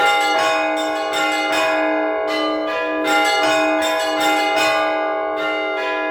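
Orthodox church bells rung together by one bell-ringer in a full peal. A deep bell keeps sounding under quick, uneven strikes of smaller bells, several a second.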